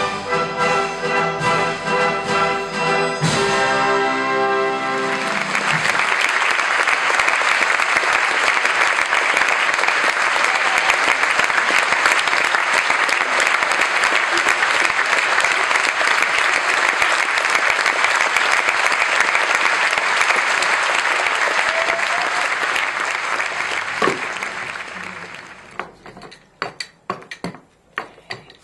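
An orchestra plays the final chords of a ballet score, ending about four seconds in, and a theatre audience breaks into long, steady applause that fades out near the end.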